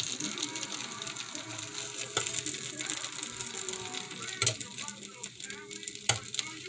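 Metal fork and knife scraping and clicking against the plate of a waffle maker as a cooked waffle is pried loose, with sharp clicks about two, four and a half, and six seconds in.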